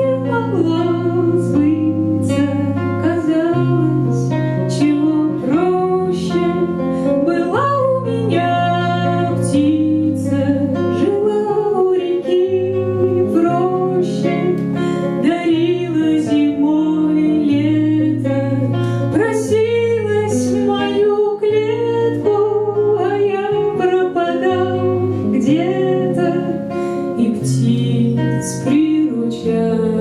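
Live song: a woman singing a sliding, bending melody over fingerpicked acoustic guitar.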